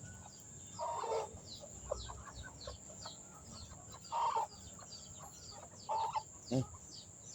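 Rooster giving a few short clucking calls, spaced a second or more apart, while it is held and rubbed, with faint quick high chirps between them.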